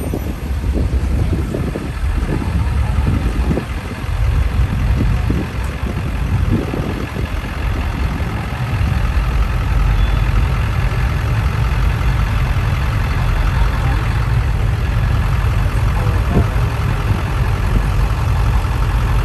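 Motor vehicle engine idling, a steady low rumble.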